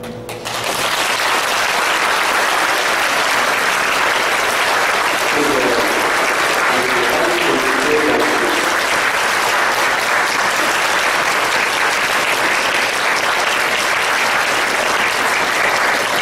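Audience applauding steadily, starting about half a second in as a string ensemble's piece ends.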